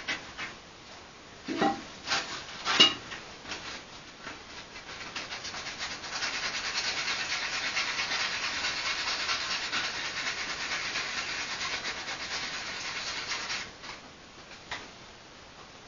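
A few sharp knocks in the first three seconds, then a steady, fast rasping as a carving knife scrapes and shaves a wooden spoon blank for about eight seconds, stopping shortly before the end.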